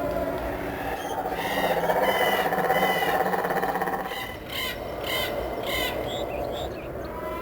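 Animal calls, bird-like squawks, with three short calls about half a second apart just past the middle, over a steady background din.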